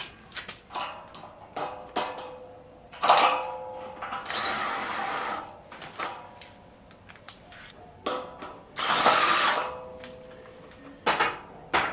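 Power drill-driver driving screws that fix a gate hinge to a pre-drilled steel post. It makes two short runs with a steady whine, the first lasting about two seconds and the second about one second, near the middle and two-thirds of the way in. Clicks and knocks of metal parts being handled fall around the runs.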